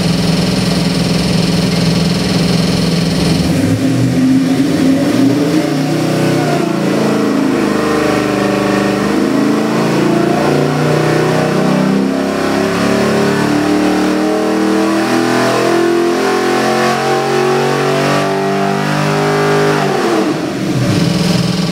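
Chevrolet LS3 376-cubic-inch V8 crate engine on an engine dynamometer, idling, then from about three and a half seconds in pulling under load in a long, steady rising sweep to nearly 6,000 rpm. Near the end the throttle closes and it drops back to idle.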